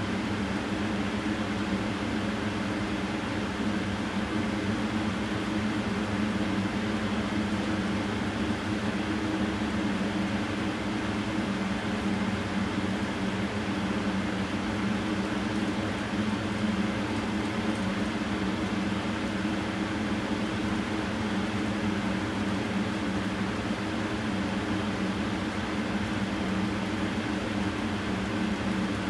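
Steady mechanical hum with an even whooshing noise, unchanging throughout, like a running fan, air conditioner or idling engine.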